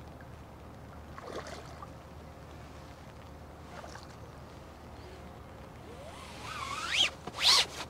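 Water splashing as a hooked ghost carp thrashes at the surface while being played, with a short squeak and two loud splashes near the end.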